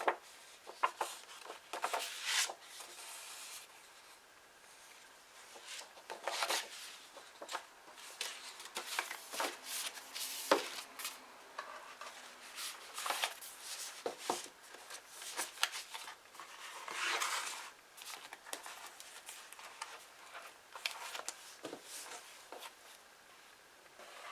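Paper and card being handled at close range: rustling swishes, like pages turning or sheets sliding, mixed with sharp taps and clicks at irregular intervals.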